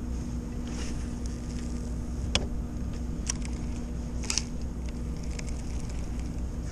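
Pedal-driven fishing kayak moving through the water: a steady low rumble with a faint hum, and three sharp clicks about a second apart midway through.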